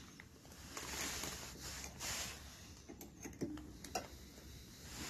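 Quiet handling noises: soft scraping swells and a few small sharp clicks as a metal rod is worked in the top cap of a breathing air compressor's filter housing to open it, with the clicks bunched around three to four seconds in.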